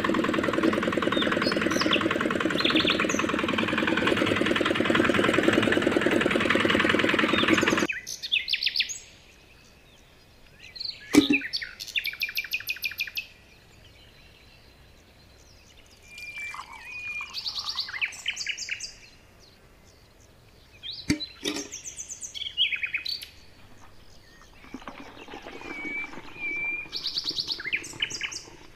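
A miniature cement mixer's small electric motor runs steadily and loudly, then stops about eight seconds in. After that, birds chirp in short bursts of trills, with two sharp clicks between them.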